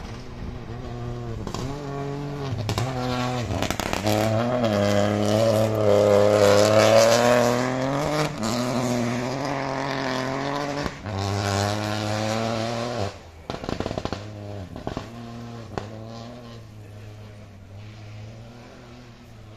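Rally car engine at full speed passing by, the revs climbing and dropping again and again. It is loudest about a third of the way in, falls off sharply about two-thirds through and fades away.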